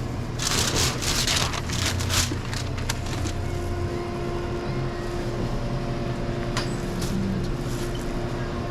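Steady low hum of restaurant equipment running, with bursts of rustling in the first couple of seconds and a few light clicks and knocks later.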